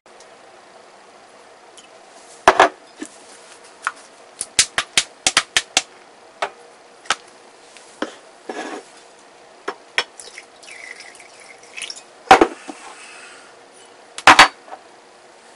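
Kitchen clatter of sauce bottles, caps and a glass measuring cup being handled on a countertop: scattered sharp clicks and knocks, with a quick run of clicks about five seconds in and the loudest knocks near the start and near the end.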